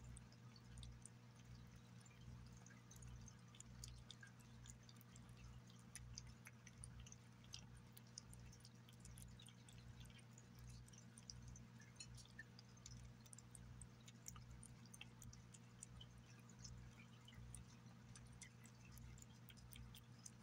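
A cat eating chunks of wet food in gravy: faint wet chewing and lapping, heard as many small irregular clicks and smacks, over a steady low hum.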